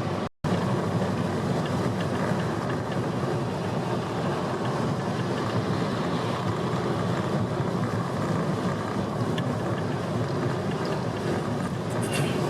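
Steady noise of a car driving in heavy rain, heard from inside the cabin: tyres on a water-covered road and rain on the bodywork. The sound cuts out completely for a moment about half a second in.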